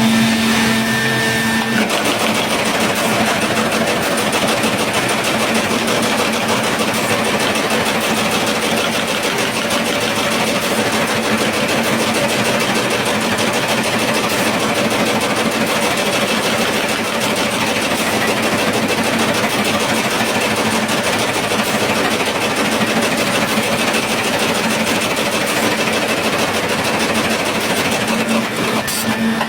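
Broom-making machinery for plastic-bristle hand brooms running steadily: a dense, continuous mechanical clatter, with a low motor hum that stands out in the first two seconds and again near the end.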